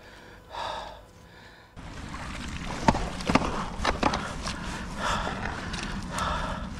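Rope-hauling on a muddy canal bank: a magnet and its rusty catch dragged up through wet mud on a rope, with rustling and squelching and a few sharp knocks.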